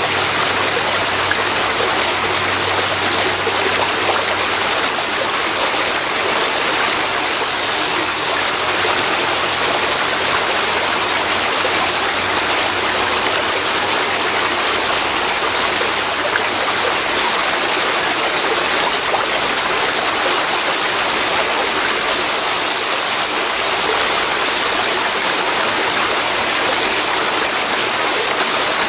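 Waterfall pouring into a river, a steady loud rush of water.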